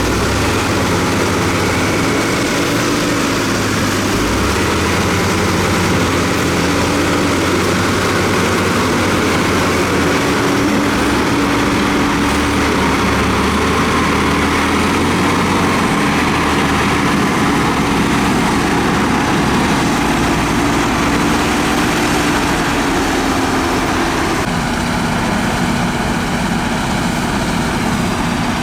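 Diesel engines of heavy construction machinery running steadily, their pitch wavering slightly and dropping a little near the end.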